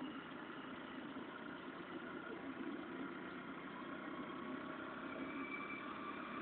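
Steady, even engine drone, with a few faint steady tones coming in during the second half.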